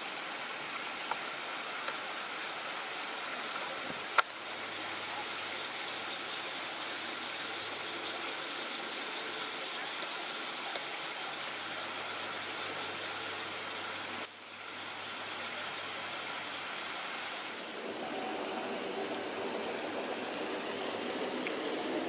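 Steady rush of water spilling over a low concrete weir and across its shallow apron, with one sharp click about four seconds in.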